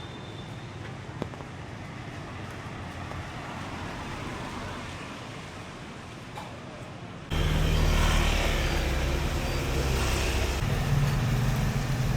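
Street traffic noise with motor vehicles going by. About seven seconds in it turns abruptly louder, with engines running close by.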